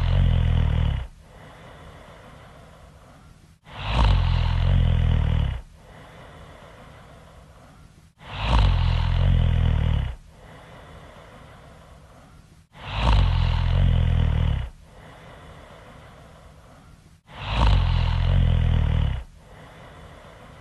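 Loud snoring: a long snore of about two seconds comes roughly every four and a half seconds, five times, with much quieter sound between them.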